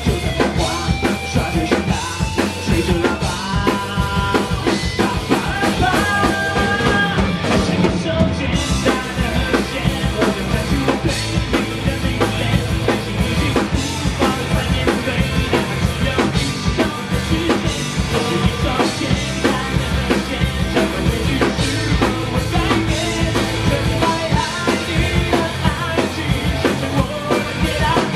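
Rock band playing live, with a drum kit driving a steady beat under pitched melodic parts.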